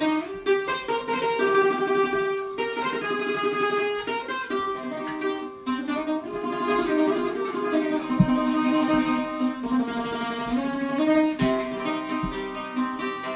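Bouzouki playing a melodic instrumental interlude of a Greek laïko song, a run of quick plucked notes between sung verses.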